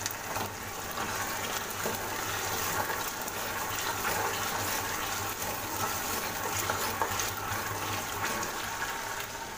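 Chopped tomatoes, green chillies and fried onion masala sizzling in hot oil in a kadhai while a steel ladle stirs them; a steady frying hiss with faint small ticks.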